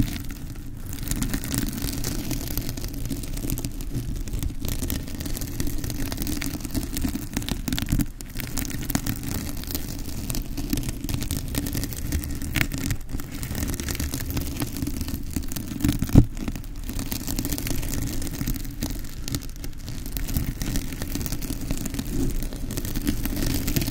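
Hair curlers rubbed and handled close to the microphone: a continuous dense scratchy crackle, with a sharper click about sixteen seconds in.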